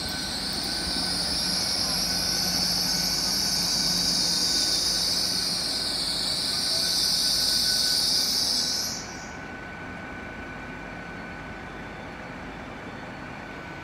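GWR Class 800 Intercity Express Train moving off on a curve, its wheels squealing loudly and high against the rails. The squeal cuts off abruptly about nine seconds in, leaving a steady low background hum.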